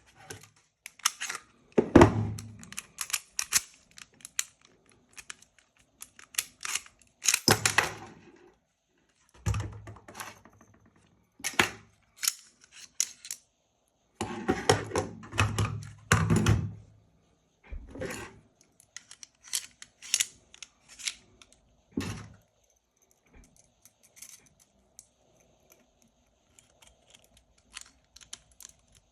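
Airsoft Beretta M92 replica pistol being field-stripped and reassembled by hand: repeated sharp clicks and clacks of the slide, magazine and small parts, with heavier clusters of knocks and thuds a few times as parts are pulled off, set down or snapped back into place.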